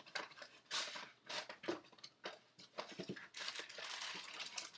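Cardboard box and wrapped trading-card packs being handled and pulled out: a string of crinkles, rustles and small knocks, with a denser stretch of rustling about three and a half seconds in.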